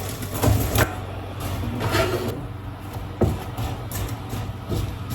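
Pieces of watermelon rind being tipped into a pot of sugar syrup, with scattered knocks and scrapes of bowl and utensils against the pot over a steady low hum.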